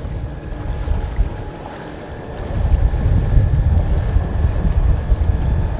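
Wind rumbling on the microphone over the faint steady hum of Sleipner Side-Power electric thrusters pushing a sailboat sideways; the wind noise grows louder about two and a half seconds in.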